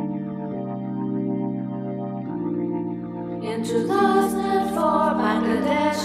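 Background music: held keyboard chords changing about once a second, with singing voices coming in a little past halfway.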